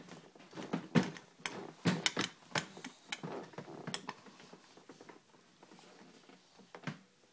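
A spoon tapping and knocking against a baby's bowl: a quick, irregular run of sharp clicks, thickest over the first four seconds, thinning out after, with one last knock near the end.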